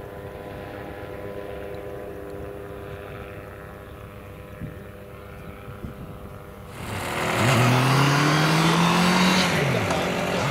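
Scheibe SF-25 C Falke motor glider's engine and propeller running steadily at low power while taxiing. About two-thirds in, the sound turns abruptly much louder as the engine runs at full power for the takeoff run, its pitch rising, with one tone falling away near the end.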